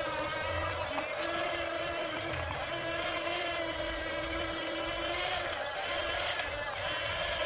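Radio-controlled excavator's small electric motor running with a steady whine, its pitch wavering slightly.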